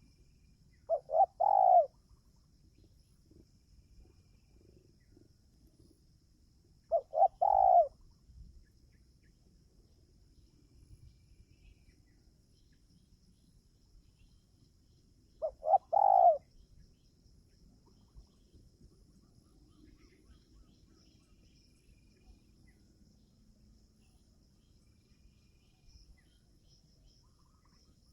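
Spotted dove cooing: three calls about six to eight seconds apart, each a quick couple of short notes running into a longer final coo. A faint steady insect trill sits underneath.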